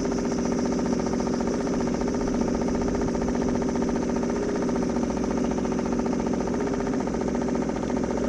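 Boat's outboard motor running steadily at an even speed.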